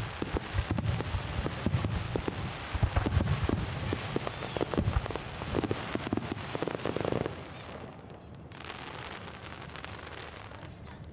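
Fireworks: a dense barrage of rapid cracks and low booms from bursting shells, which stops abruptly about seven seconds in and leaves a quieter hiss.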